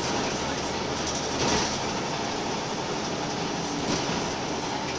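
Interior sound of a Scania L94UB Wright Solar single-deck bus under way: the engine running and road noise, steady, with a few brief rattles from the body and fittings.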